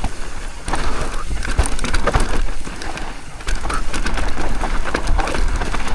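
Mountain bike descending a loose dirt trail: tyres scrabbling over dirt and rocks, with frequent rattles and knocks from the bike and a steady low rumble of wind on the microphone.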